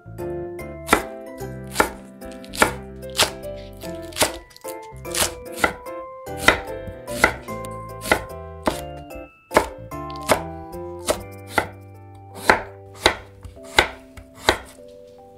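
Chef's knife slicing onion and then carrot on a wooden cutting board: about twenty sharp knocks of the blade striking the board, at an unhurried, fairly even pace of a bit more than one a second.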